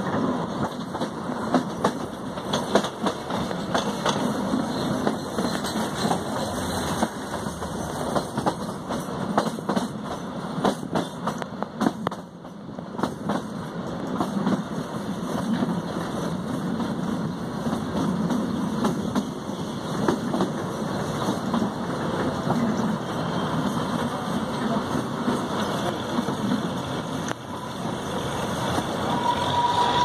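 Narrow-gauge passenger train running on a hill line, heard from inside a coach: a steady low drone with frequent clicks from the wheels on the rails.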